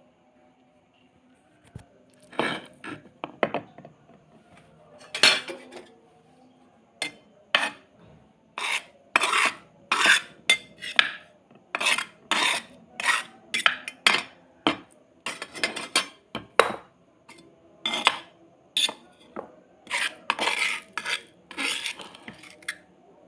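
Kitchen utensils knocking and clinking, a long run of sharp strikes at about one to two a second.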